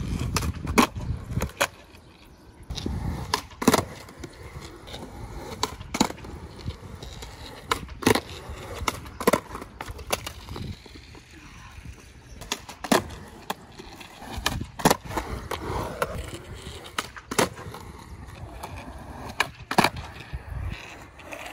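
Skateboard fitted with counterfeit trucks being kicked into flips on concrete: repeated sharp clacks of the tail popping and the board landing or slapping down, one every second or two, with wheels rumbling between.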